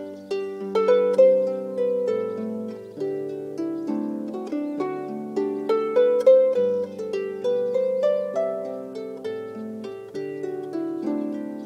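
Background music: a gentle melody of single notes, each struck sharply and left to ring, over slow low bass notes.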